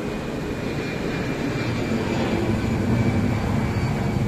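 An airplane flying overhead: a low rumble that swells louder about halfway through.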